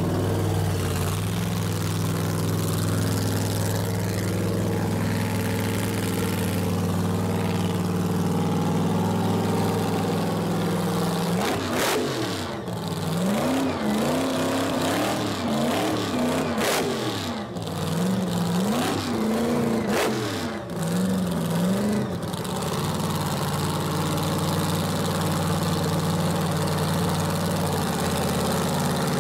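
Alcohol funny car's supercharged V8 idling with a deep, steady beat. About halfway through it is blipped five or six times in quick succession, the pitch rising and falling with each rev and a few sharp cracks among them, then it drops back to idle.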